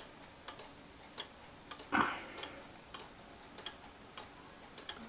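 Pendulum escapement of a Lincoln regulator wall clock ticking steadily, a little under two ticks a second. A short, louder noise is heard about two seconds in.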